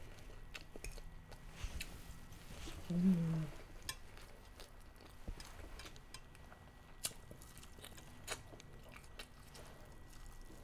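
Close-up mouth sounds of someone biting and chewing fried chicken, with scattered small wet clicks and crunches. A brief hummed voice sound comes about three seconds in.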